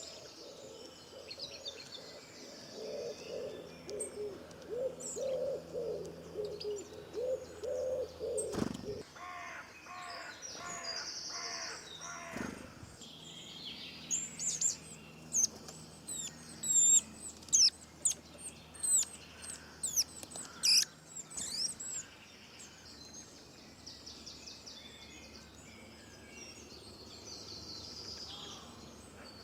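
Several birds calling. For the first nine seconds there is a low, repeated cooing or hooting series. A short run of harsher pitched calls follows. Then, from about 14 to 22 seconds, come loud, high, quickly falling chirps, over a faint outdoor background.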